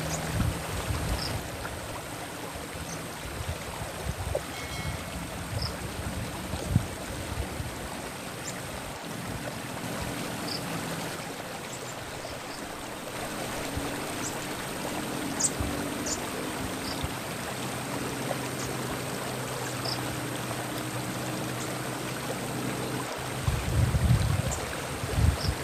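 Flowing stream water, a steady rushing, with a few faint short high chirps scattered through and brief low rumbles near the end.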